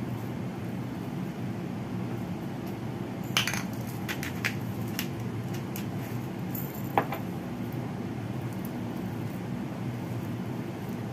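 Silicone spatula stirring and pressing a mashed pumpkin and minced meat mixture in a ceramic bowl, with a handful of clinks of the spatula against the bowl between about three and seven seconds in, the sharpest near seven seconds. A steady low hum runs underneath.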